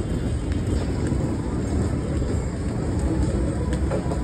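Street ambience in a busy pedestrian lane: a steady low rumble with a few faint clicks.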